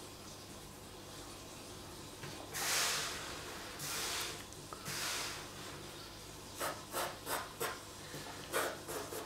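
Pencil sketching on a large sheet of paper. Three long sweeping strokes come first, then a run of short, quick strokes near the end.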